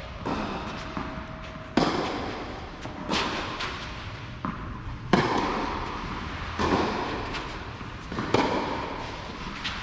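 Tennis rally: rackets striking the ball back and forth, about six sharp pops a second or two apart, each echoing under the covered court's roof.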